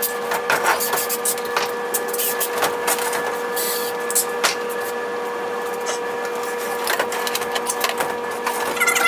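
A steady mechanical whine at one pitch, with several overtones, under irregular clicks and knocks.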